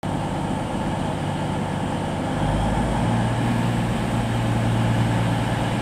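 Class 220 Voyager diesel multiple unit standing at the platform, its underfloor Cummins diesel engines idling with a steady low hum. The engine note shifts and grows a little louder about halfway through.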